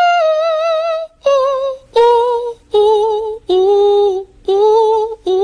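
A high solo voice singing a slow run of long held notes with vibrato, about seven notes separated by short breaths, stepping down in pitch.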